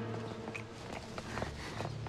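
Footsteps of people walking: a scattering of light, irregular steps.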